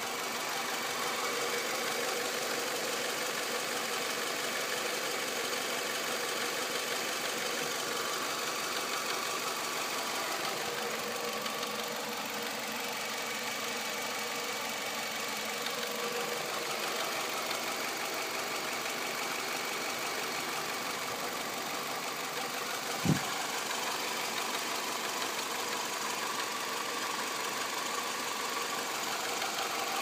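2006 Nissan Altima 2.5S's 2.5-litre four-cylinder engine idling steadily with a knocking noise, which the owner places near the top rear of the engine on the timing-chain side and cannot yet explain. A single sharp thump about two-thirds of the way through.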